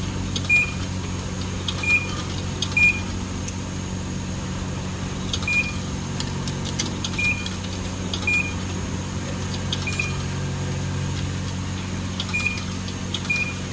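Self-serve car wash pay station giving short single beeps, about nine at uneven intervals, as more money is fed in, with scattered clicks over a steady low hum.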